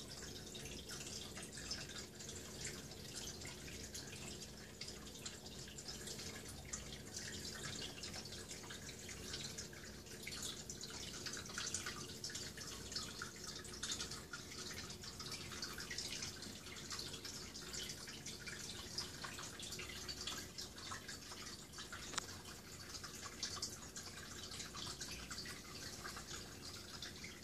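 Aquarium water trickling and splashing: a steady, dense patter of small drips over a faint low hum.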